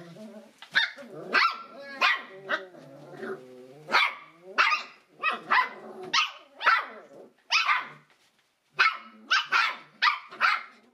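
Seven-week-old Shetland sheepdog puppies barking over and over, high sharp barks about one to two a second, with a short pause about eight seconds in.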